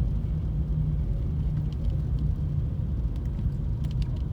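Car driving along a snowy street: steady low engine and road rumble heard from inside the car, with a few faint ticks in the second half.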